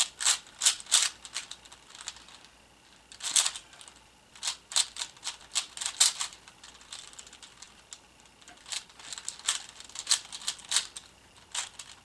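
A 4x4 Rubik's cube being turned quickly by hand: bursts of rapid, sharp plastic clicks as the layers are turned, broken by short pauses.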